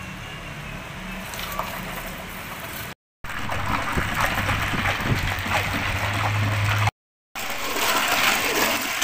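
Ice cubes and liquid being stirred and sloshed in a plastic bucket, with splashes and clinks of ice, louder near the end. The sound cuts out completely twice for a moment.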